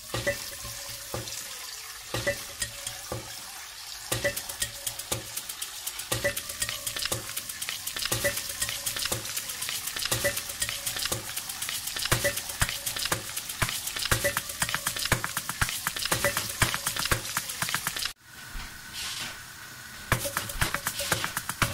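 Kitchen cooking sounds cut into a rhythmic sequence: a utensil stirring and scraping in a bowl, clinking dishes and sizzling, with a click returning about once a second like a beat. The sound cuts off sharply near the end and gives way to a steadier hiss.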